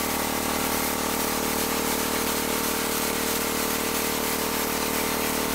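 Pneumatic spray gun hissing steadily as it sprays contact adhesive onto a foam sound-deadener pad, over a steady motor hum.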